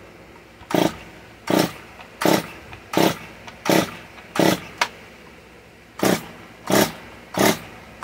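Stihl MS 194 T two-stroke top-handle chainsaw being pull-started with the choke off: nine quick recoil-starter pulls, each a short whoosh of the cord and the engine turning over, with a brief pause after the sixth. The engine does not catch, and the owner then checks the spark plug, suspecting a little water got in.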